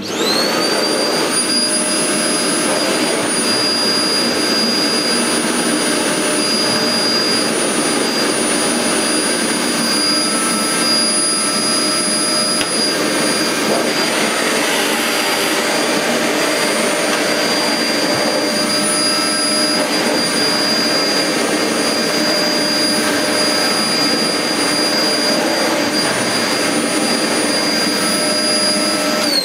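Goblin GCV301W bagless cylinder vacuum cleaner switched on, coming straight up to full power with no soft start, then running steadily with a high whine over a rushing airflow as its floor nozzle is pushed over carpet.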